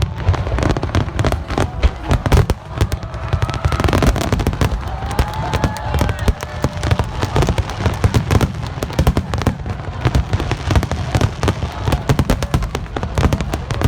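Fireworks display: a rapid, unbroken barrage of aerial shell bursts and crackling bangs, many a second, with faint crowd voices underneath.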